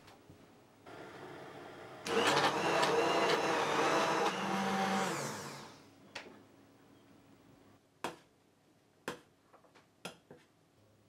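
Handheld immersion blender running in a pot of mushroom soup, puréeing it: a soft whirr, then loud steady running for about three and a half seconds before it winds down. A few light, separate clicks follow.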